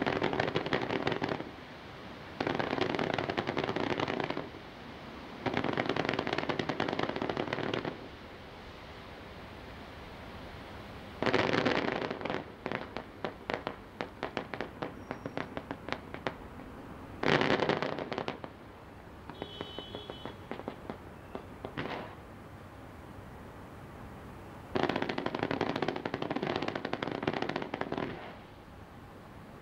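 Fireworks display: several stretches of dense, rapid crackling, each lasting one to a few seconds, with runs of separate sharp pops in between.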